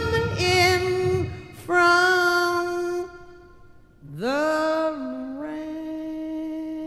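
Recorded slow jazz ballad: a lead melody in short phrases with vibrato, a brief lull about three seconds in, then a note sliding up and held long over soft accompaniment.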